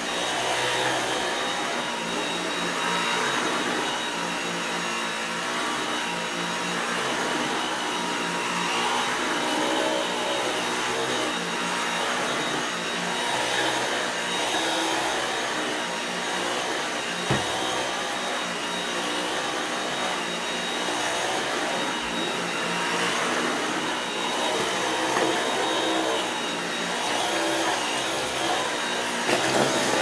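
Dyson V8 cordless stick vacuum running steadily on standard suction, with a high whine, as its cleaner head is pushed back and forth over floor mats. A brief knock comes about halfway through.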